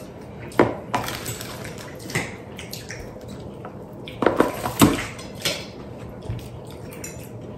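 Metal serving tongs and cutlery clinking and scraping against plates during a meal: scattered sharp clicks, a cluster of the loudest ones about halfway through.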